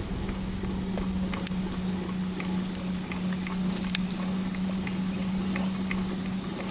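Aerial tramway car running along its track ropes: a steady hum under rough rumbling noise, with a few scattered clicks.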